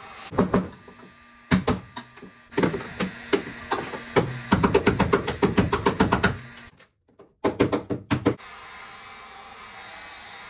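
A series of sharp hammer knocks and taps on a fiberglass C3 Corvette fender as it is knocked loose from its bonding, coming in quick bunches that are densest about halfway through. A heat gun blows steadily underneath at the start and again after the knocks stop.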